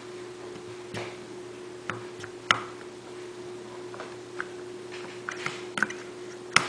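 Metal slide assembly knocking against an obstruction as it is worked back and forth, a string of sharp metal-on-metal clicks at irregular intervals, the loudest about two and a half seconds in and near the end. Each stroke hits at the same point, a sign that something still blocks the slide from coming out.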